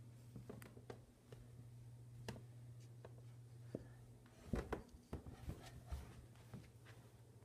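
Soft scattered knocks and rubbing from someone moving on carpeted stairs with a phone in hand: footfalls and handling of the phone. A steady low hum runs underneath, and a cluster of louder knocks comes past the middle.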